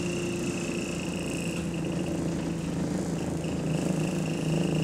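Bus engine running steadily, heard from inside the passenger saloon: a low drone with a steady high whine over it from the engine cooling fan, on a bus the uploader says is in limp mode.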